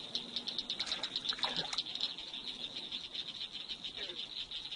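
Night chorus of calling insects and frogs at a pond: a steady, high-pitched trill made of rapid, even pulses.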